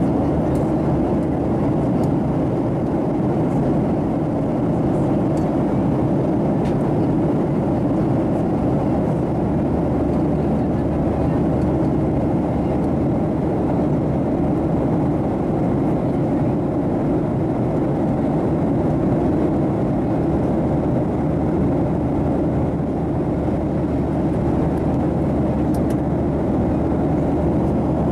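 Steady cabin noise of a Boeing 737-700 in flight: an even engine drone and airflow rush, low and unchanging.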